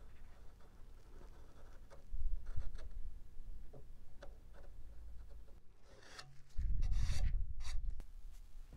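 Scratchy marking strokes on balsa wood, with small clicks as a square is set against the wood and moved. About six and a half seconds in comes a louder stretch of rubbing and handling with a low rumble, lasting a second and a half.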